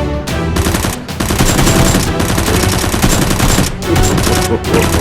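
Rapid automatic gunfire in long bursts, with short breaks about a second in and near the four-second mark, over background music.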